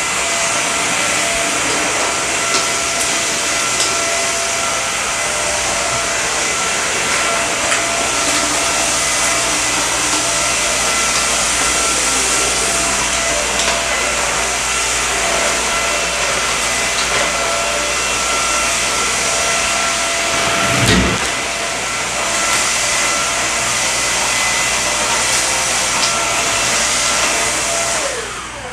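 Samsung Jet VS70 cordless stick vacuum running steadily on carpet: a steady motor whine over rushing air, with scattered small clicks. There is a brief low thump about two-thirds of the way in. Near the end the vacuum is switched off and its whine falls away.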